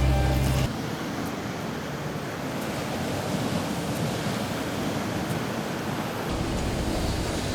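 Steady rushing of sea water and wind, with no distinct events. It follows a music bed that stops abruptly less than a second in.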